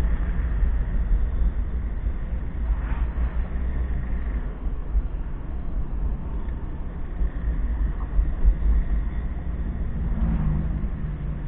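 Steady low rumble of a car driving along a road, heard from inside the cabin: its engine running and its tyres on the asphalt.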